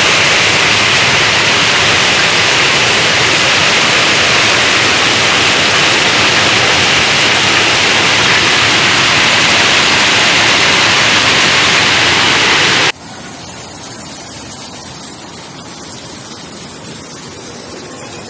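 Heavy cloudburst rain falling, a loud, steady rush of hiss. About 13 seconds in it cuts off abruptly to a much quieter, steady hiss.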